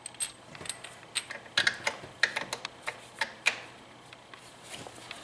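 Hand wrench working a bolt on an engine-mounted bracket: a run of sharp, irregular metal clicks and clinks for about three and a half seconds, then quieter.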